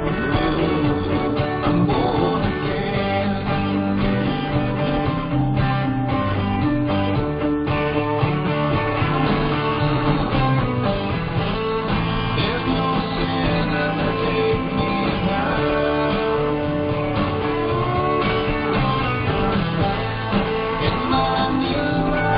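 Recorded music led by guitar, playing at a steady level.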